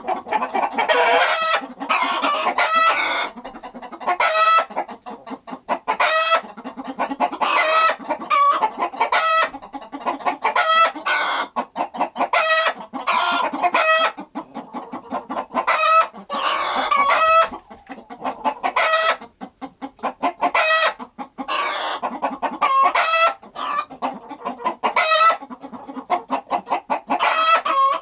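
Chickens clucking, many short pitched calls in quick, irregular succession with a few longer drawn-out calls among them.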